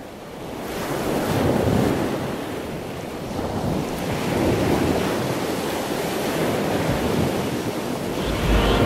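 Sea surf: waves washing in, the noise swelling and fading every couple of seconds.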